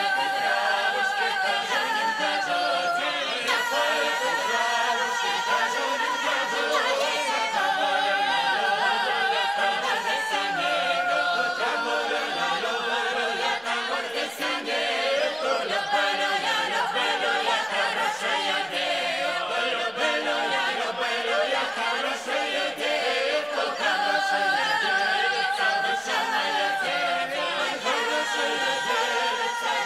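Unaccompanied Russian folk singing by several voices together, in long, slowly moving melodic lines that bend and slide in pitch.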